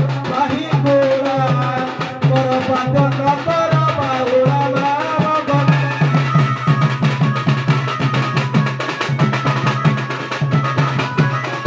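Double-headed barrel drums beaten in a brisk, steady folk rhythm, the strokes growing denser about halfway through. A wavering melody line plays over the drumming in the first half and then fades out.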